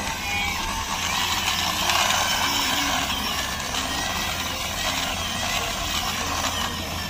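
Plastic wheels of a toy buggy rolling over rough concrete as it is pushed by hand, a steady rolling noise.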